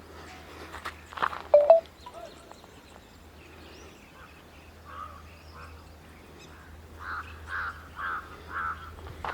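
Birds calling, with a short, loud call about a second and a half in, then a crow cawing repeatedly, about two caws a second, in the last few seconds.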